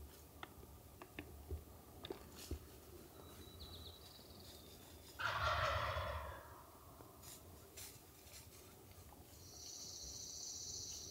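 A wild turkey gobbler, a Merriam's, gobbling once about five seconds in: one loud rattling call about a second long. A short high trill follows near the end.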